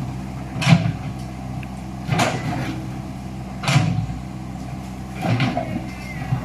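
Komatsu hydraulic excavator's diesel engine running steadily. Four sharp clanks come about every second and a half as the bucket strikes and scrapes the road surface, breaking it up.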